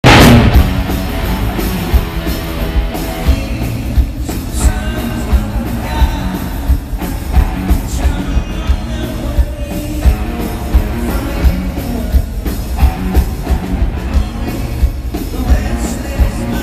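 Two-piece rock band playing live through a concert PA: electric guitar over a drum kit's steady beat, loud from the very first instant.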